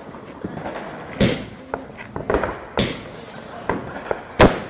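Fireworks going off: three sharp bangs about a second and a half apart, the last the loudest near the end, with smaller cracks and pops between them.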